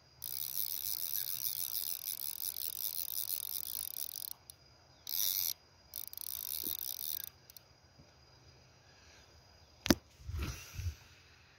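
Fly reel's click-and-pawl ratchet buzzing as line is wound in. It comes in three spells: about four seconds, a short burst, then just over a second. Near the end there is a sharp knock and a few dull handling thumps.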